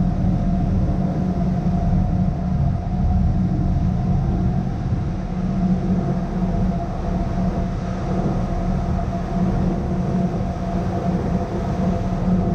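Steady drone of a tour boat's engines while underway, mixed with the rushing noise of wind and water across the open deck.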